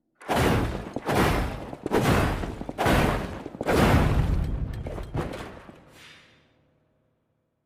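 Sword combat sound effect: a run of about five heavy strikes, each hitting hard and trailing off, followed by a few sharp clicks and a fading tail that dies away before the end.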